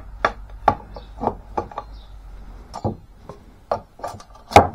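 Kings County camp axe making a run of light chopping strokes into a thin piece of wood on a log chopping round, about two sharp knocks a second, the last near the end the loudest.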